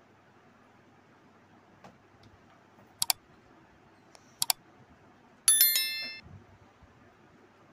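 Subscribe-button animation sound effect: a pair of quick mouse clicks, a second pair about a second and a half later, then a bright bell chime, the loudest sound, ringing out for about half a second.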